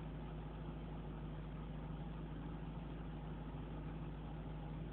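2006 Lexus GS430's 4.3-litre V8 idling steadily in reverse with the car standing still, a constant low hum.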